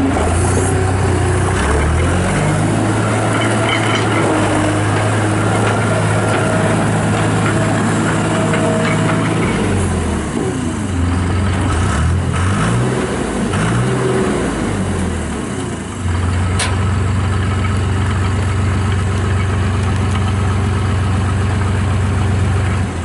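Turbo diesel engine of a 2003 John Deere 250 skid steer loader running. Its pitch dips and recovers several times near the middle as engine speed changes, then holds steady.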